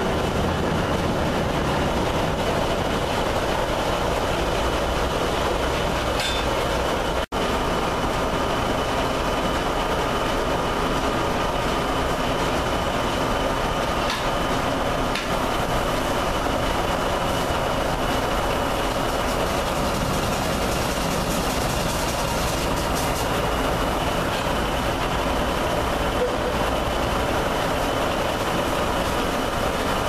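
Circular sawmill running, with its large blade and the log carriage's machinery making a steady mechanical din and a steady high tone over it. The sound drops out for an instant about seven seconds in.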